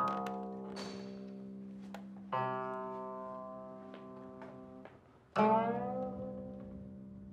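Guqin being plucked: three notes or chords about two and a half seconds apart, each left to ring and slowly fade, the third with a sliding pitch.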